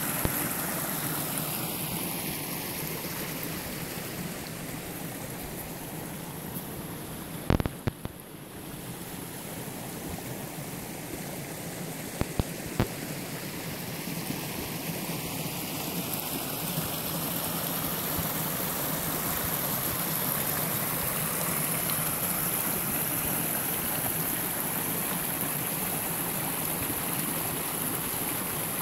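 Snowmelt creek rushing over rocks and forest floor: a steady water noise, a little louder in the second half. A few sharp knocks break in about a quarter of the way through and again near the middle.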